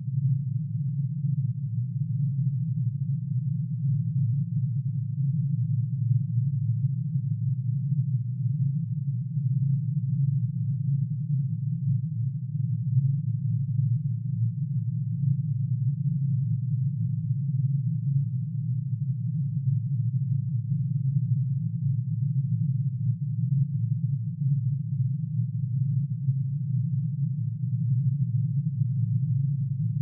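Synthesized drone made of many summed sine tones, one for each line in curium's atomic emission spectrum, pitch-shifted down to an audible range. A steady, low, dense hum that does not change.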